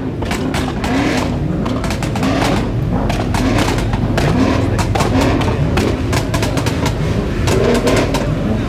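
A car engine revved again and again in quick blips, its pitch climbing on each one about every half second, with sharp pops and cracks between the revs.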